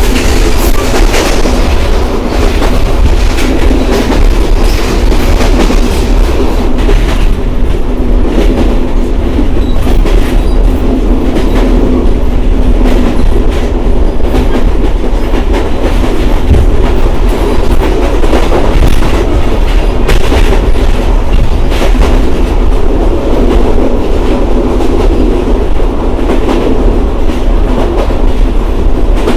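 Express train running on the track: a loud, steady rumble of wheels on rail, with the clickety-clack of rail joints, strongest in the first couple of seconds.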